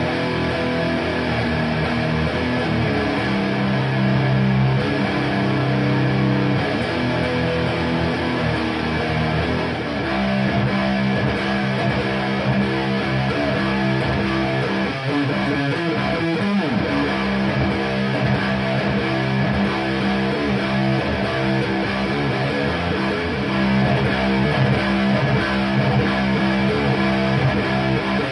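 Electric guitar with DiMarzio FRED pickups played through a Framus Cobra 100 W head and a Marshall MF400A cabinet with Celestion G12-K100 speakers, strumming sustained chords that ring for a second or more each.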